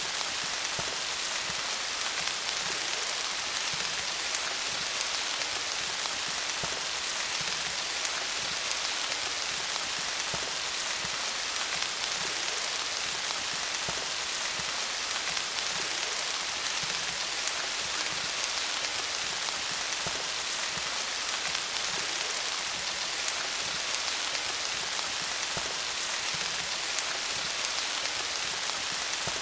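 Steady rain falling on leaves: an even hiss made of many small, close drop ticks.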